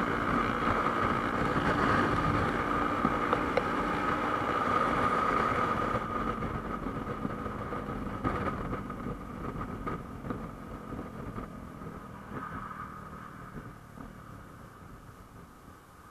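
A vehicle engine running, with a steady high drone alongside; the sound fades away gradually over the second half.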